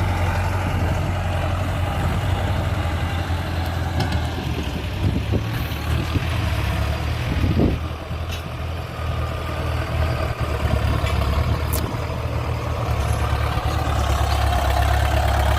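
Ford 6610 tractor's four-cylinder diesel engine running steadily and loud under working load, dipping briefly about eight seconds in.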